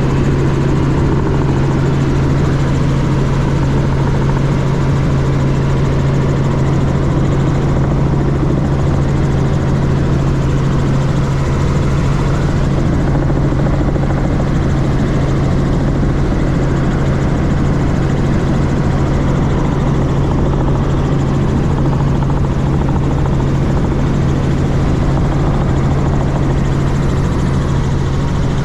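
Helicopter in flight, heard from inside the cabin: a steady, loud drone of engine and rotor with a strong low hum that does not change.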